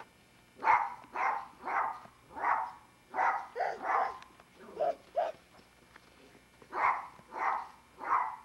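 A dog barking repeatedly: about a dozen short barks in two runs, with a pause of over a second between them.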